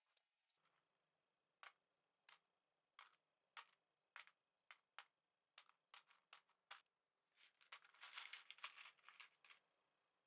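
Steel drill bit tapping among loose steel paperclips and pushpins in a clear plastic box: about a dozen separate light clicks, then a busier rattle of clips for about two seconds near the end. The bit is being tested for leftover magnetism after demagnetizing.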